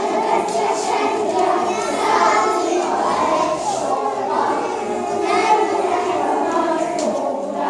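A group of young children singing a song together in chorus, without a break.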